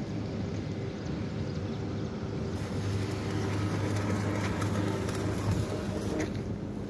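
Electric arc welding on an excavator boom: a steady low hum, with a crackling hiss that starts about two and a half seconds in and stops about a second before the end.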